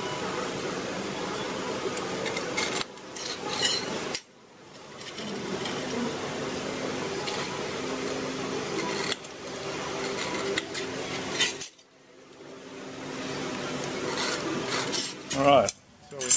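Metal scribe scratching lines into steel plate along a steel rule, in several long strokes with short breaks between them.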